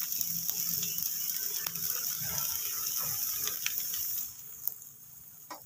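Semolina appam batter sizzling on a hot non-stick tava: a steady hiss with scattered crackling pops as holes form across its surface. The hiss drops away sharply about four seconds in.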